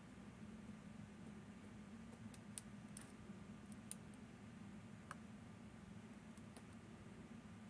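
Faint, irregular clicks and ticks of picking tools working the levers inside a Fichet 787 eight-lever lock, over a low steady hum.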